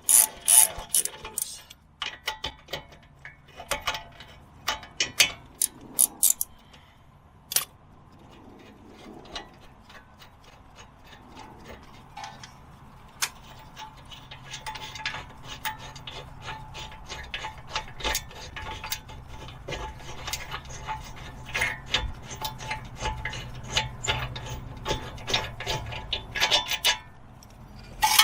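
Metal hand tools clicking and clinking while working on a car's front wheel hub. Scattered clicks at first, then a long run of fast, rapid clicking in the second half, like a ratchet being worked.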